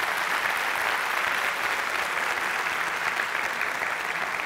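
Studio audience applauding, a steady spell of clapping from a large crowd.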